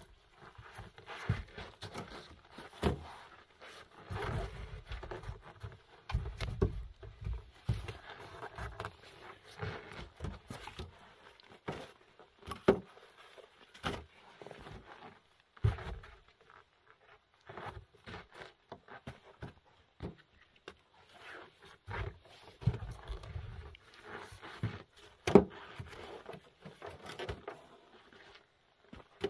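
Split firewood logs knocking and clattering as they are pulled from a woodpile and dropped onto a plastic sled, a sharp knock every few seconds. Low rumbling handling noise comes in stretches between the knocks.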